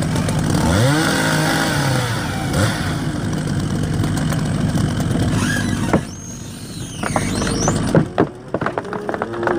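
An engine revving up and down. The level drops suddenly about six seconds in, and a few sharp knocks or cracks follow near the end.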